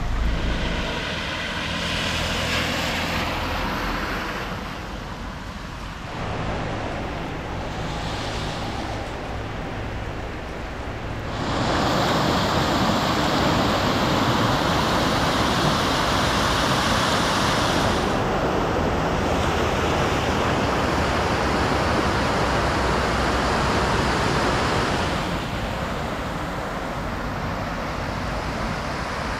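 Rainwater runoff flowing through a flooded street. About a third of the way in it gives way to a louder, steady rush of floodwater pouring over a concrete wall into a drainage channel. Near the end it drops back to a quieter flow of runoff.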